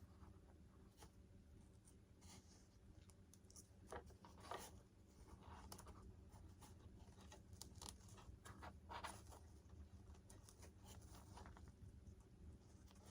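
Near silence with faint scratching and rustling of hand work on the model, short scrapes scattered through, a little louder about four and nine seconds in.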